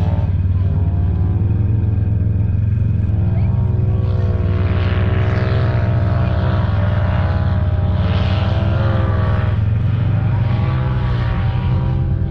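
Stock Polaris General XP4 UTV's twin-cylinder engine running steadily under way, its pitch rising and falling with the throttle over a constant low hum. A higher rushing noise swells through the middle stretch.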